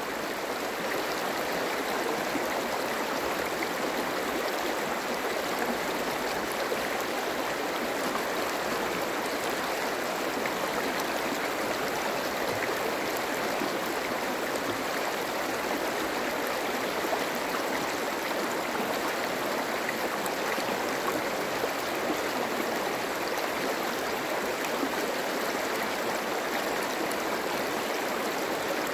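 Shallow stream running over a stony bed: a steady rush and babble of water over rocks.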